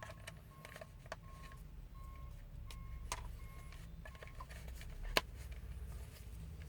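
A vehicle warning chime beeping faintly and evenly, about three short beeps every two seconds, stopping about four seconds in, with scattered clicks and a sharper knock about five seconds in.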